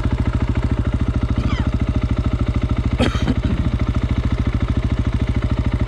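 A motorcycle engine idling with a steady, even pulse, with a short clatter about three seconds in.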